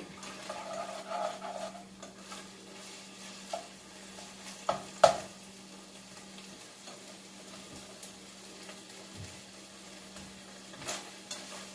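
Browned ground beef sizzling faintly in a skillet as it is stirred, with a few knocks of the utensil against the pan, the sharpest about five seconds in. A steady low hum runs underneath.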